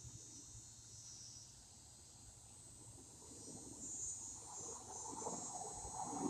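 Faint, steady insect chorus of crickets or katydids, high-pitched and continuous. A rougher, louder low rustle builds up over the last few seconds.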